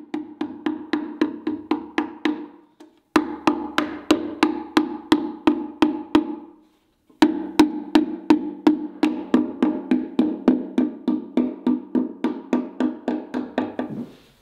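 A white-headed mallet tapping against a cherry cabinet side panel along a metal shelf-standard strip: three runs of quick, even knocks, about four a second, with short pauses between them.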